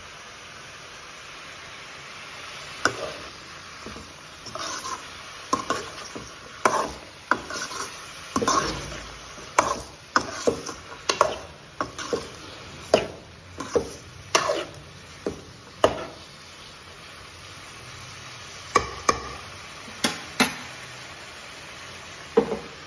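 Metal spoon stirring chopped bottle gourd in a metal kadai: irregular scrapes and clinks of metal on the pan, dense through the middle and a few more near the end. A steady hiss lies beneath.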